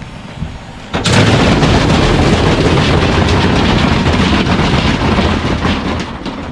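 Samsung washing machine spinning with a badly unbalanced load at 800 rpm: the drum crashes and bangs violently inside the cabinet in a dense, very loud racket. It starts suddenly about a second in and eases near the end.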